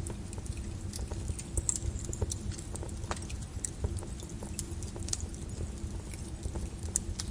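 Wood fire crackling in a fireplace: irregular sharp snaps and pops over a low, steady rumble of burning.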